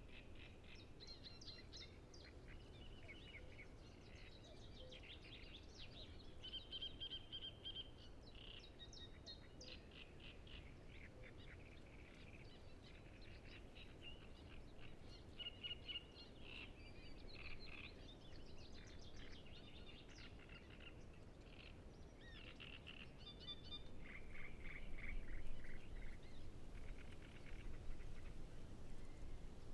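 Great reed warblers singing in a reedbed: runs of rapid repeated chattering phrases, one after another, thinning out near the end as a low rumble comes up.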